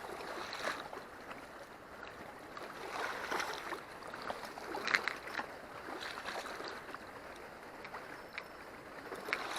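River water sloshing and splashing in uneven swells, with a few small ticks.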